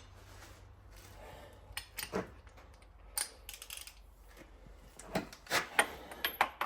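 Short metallic clicks and clinks from a wrench and socket working on engine bolts as they are torqued to 70 ft-lb. A few come early on and a quicker run comes near the end.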